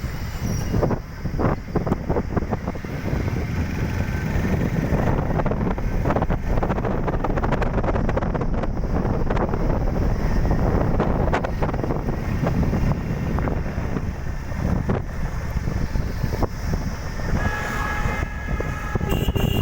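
A vehicle running with a steady low rumble and some rattling, and a horn sounding repeatedly near the end.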